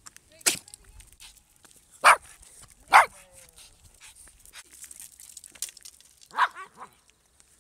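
Small pug–shih tzu mix (pugzu) giving short, loud demand barks at a stick held out to it, wanting it thrown. Four barks spaced out over several seconds, the last followed quickly by a smaller one.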